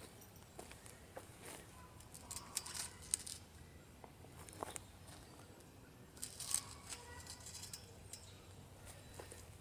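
Footsteps scuffing on wood-chip mulch and light rustling as the legs of a metal garden arch are set into holes in the ground. The noises come in a few short clusters, the loudest about a third of the way in and again about two thirds of the way in.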